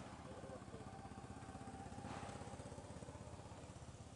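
Faint steady low pulsing of a small engine running at a distance, with a brief faint squeak from a baby macaque near the start.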